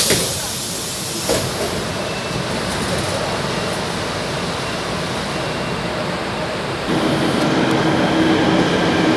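Metro train doors opening at a station: a sudden thump with a hiss lasting about a second, then a smaller knock. The car's steady running noise follows, and about two seconds from the end it steps up louder with a steady hum as the train pulls away.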